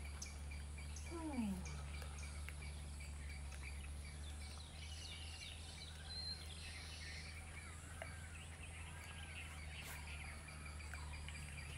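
Background ambience: a steady low rumble with scattered bird chirps and calls, and one short falling call about a second in.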